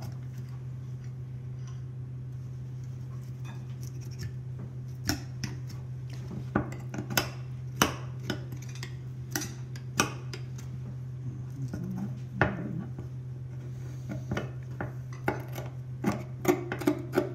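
Boning knife scraping meat and fat off a dry-aged ribeye's rib bone to french it, with irregular sharp clicks of the blade on bone and cutting board starting about five seconds in. A steady low hum runs underneath.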